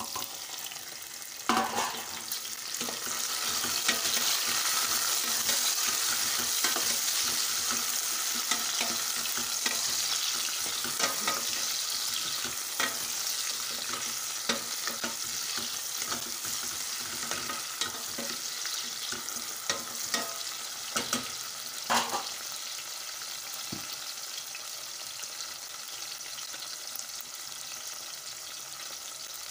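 Freshly added tomatoes sizzling in hot oil with shallots, garlic and green chillies in a stainless steel pot, stirred with a wooden spatula that knocks against the pot now and then. The sizzle swells a couple of seconds in, then slowly dies down.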